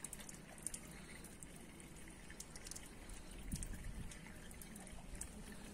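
Faint trickle of water running from the tap of a stainless-steel drinking-water cooler as a man drinks from it.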